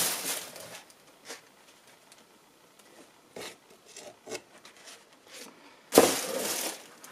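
Cardboard packaging handled and set aside: a brushing scrape at the start, a few light taps and rustles, then a sudden knock and a half-second scrape of cardboard about six seconds in.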